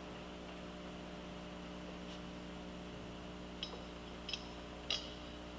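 Steady electrical mains hum, with three short sharp clicks in the second half.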